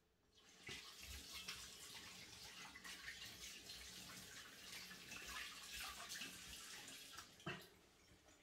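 Faint running water, starting about half a second in and fading out near the end.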